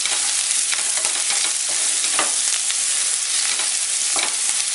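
Sliced onions and green chillies sizzling steadily in hot oil and ghee in a pressure cooker while being stirred, with a few sharp scrapes of the utensil against the pan.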